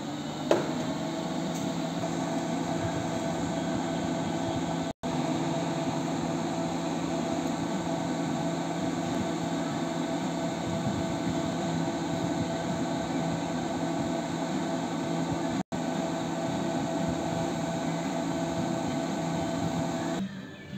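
Cooling fan of an Electroglass 4090µ+ power supply module running while the module is powered for testing: a steady whir with a low hum. A sharp click comes about half a second in, and a steady mid-pitched tone sets in after it. The sound drops out for an instant twice.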